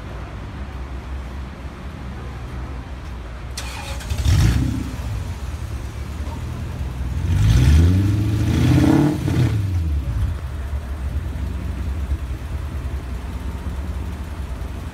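Classic sports car's engine idling, blipped once about four seconds in, then revved up and let back down to idle around the middle.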